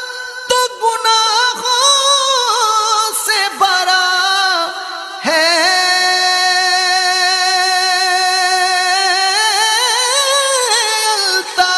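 A solo voice singing an Urdu naat in ornamented, wavering lines, breaking briefly about five seconds in, then holding one long note with vibrato through most of the rest.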